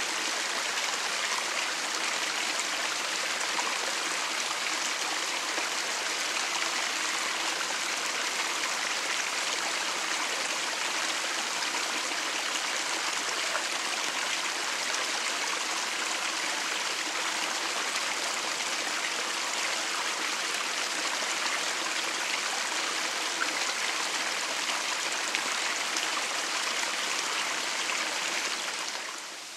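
Steady rushing of a running stream, even and unbroken, dropping away sharply just before the end.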